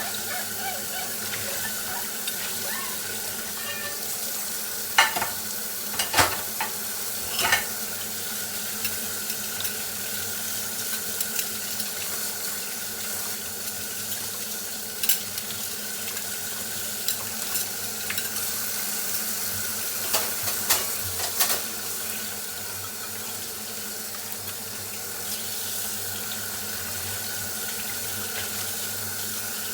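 Dishes being washed at a kitchen sink: tap water running steadily, with scattered sharp clinks and knocks of dishes against each other and the sink.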